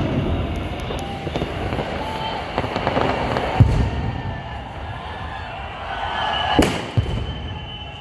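Fireworks going off: sharp bangs over a steady background din, one at the start, one about three and a half seconds in, and two close together near the end.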